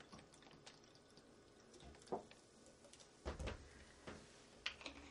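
Ginger ale poured from a bottle into a tall glass, faintly pouring and fizzing with small ticks. A low knock comes a little past three seconds in, as of something set down on the wooden counter.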